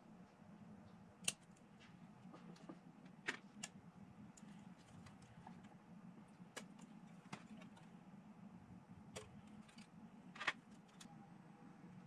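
Plastic miniature parts being snipped off their sprue with hobby sprue cutters: a scattering of sharp clicks and snips, the loudest about a second in, about three seconds in and near the end, over a faint low steady hum.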